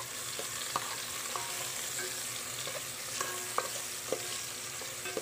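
Garlic, onion and tomato sautéing in hot oil in a metal pot, a steady sizzle, while a metal spoon stirs and scrapes the pot, clinking against it several times.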